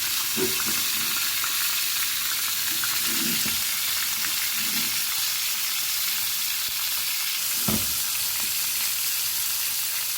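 Chicken frying in hot oil in a pan: a steady sizzle, with a few soft low thuds scattered through it.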